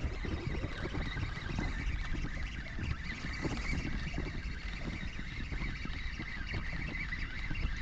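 Wind buffeting the microphone in uneven low rumbles, over a steady outdoor hiss.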